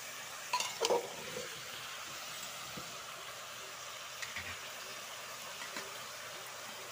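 Pumpkin, potato and chana with onions frying in oil in an open aluminium pressure cooker: a steady sizzle, with a couple of brief knocks about a second in.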